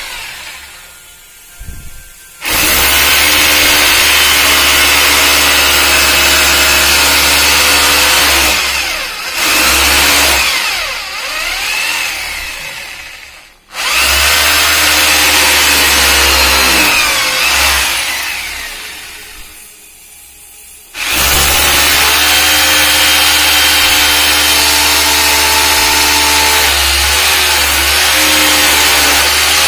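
Corded electric drill with a masonry bit boring holes into ceramic floor tile, running loud and steady in three long runs with short pauses between them, its whine falling away each time the trigger is let off.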